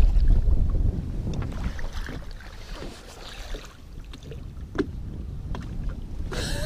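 Wind buffeting the microphone over water lapping against a boat's hull, loudest in the first second, with a couple of faint sharp clicks.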